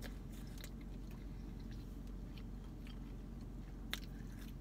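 A person chewing fast food close to the microphone, with a sharp bite about four seconds in, over a steady low hum inside a car.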